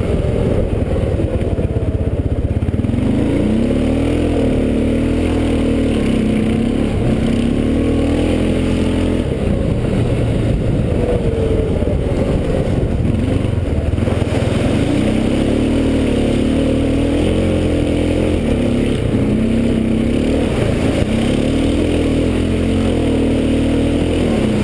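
Honda 500 ATV's single-cylinder four-stroke engine running as the quad is ridden, its note rising and falling again and again with the throttle.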